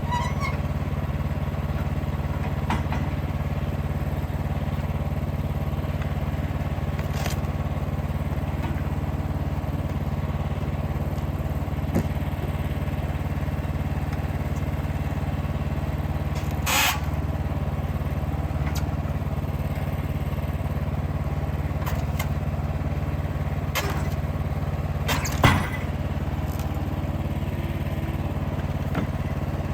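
Steady drone of the Wood-Mizer LX55 portable band sawmill's 14 hp engine running, with a few short sharp knocks, the loudest about 25 seconds in.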